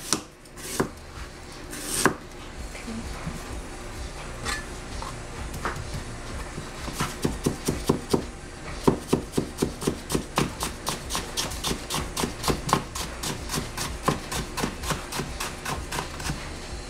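Chinese cleaver slicing fresh ginger into thin strips on a plastic cutting board, the blade knocking the board with each cut. It starts as a few separate knocks, then about a third of the way in becomes a fast, even chopping of roughly five strokes a second.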